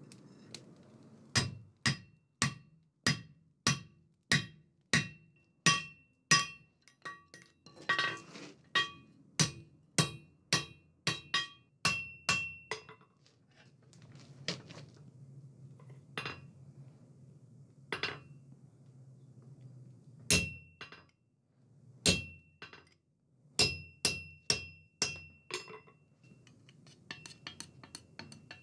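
A hand hammer strikes a red-hot 20 mm round steel bar on an anvil, and each blow rings out metallically. The blows run steadily at about two a second as the tenon is upset through a square-holed block, then become slower and scattered, with a short quicker run near the end. A low steady hum runs underneath.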